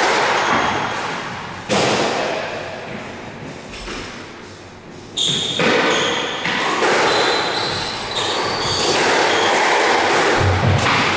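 Squash rally: the ball struck by rackets and smacking off the court walls, each hit a sharp thud that rings on in the hall, with sneakers squeaking on the wooden court floor about midway.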